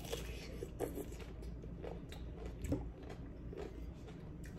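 A person biting into and chewing raw cucumber, with a few short crunches spaced irregularly.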